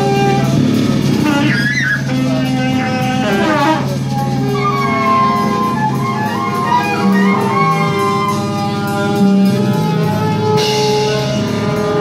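A live band playing a steady groove, with drums, a repeating bass line and held melody notes over it.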